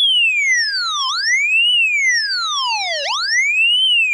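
VVco Sports Almanac theremin guitar pedal giving a pure, whistling theremin tone that swoops up and down in pitch. It slides down, jumps back up, slides down lower about three seconds in, then climbs again. The pedal's pitch-climbing switch is being engaged and released, sending the tone up and letting it drop back.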